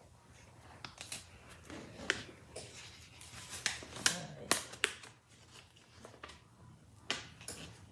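A stiff Subliflock flock transfer sheet rustling and crackling as it is handled and flexed, with about a dozen sharp crackles spread through and a quieter spell near the end.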